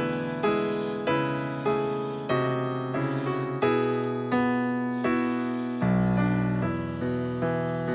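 Piano playing a slow, even run of chords, a new chord struck about every two-thirds of a second and dying away before the next.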